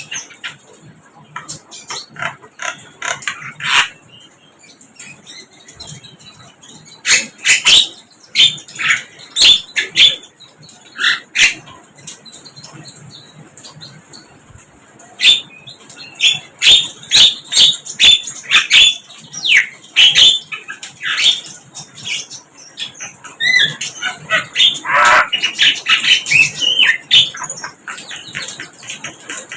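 Sikatan londo flycatcher calling: a rapid, irregular series of short sharp chirps and clicks, with a quieter spell near the middle.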